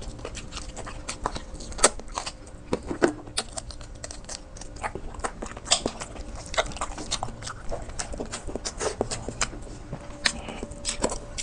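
Close-miked eating sounds of a person chewing and biting into beef shank and bone marrow from bulalo soup: a dense, irregular run of wet clicks and smacks, with a faint steady hum underneath.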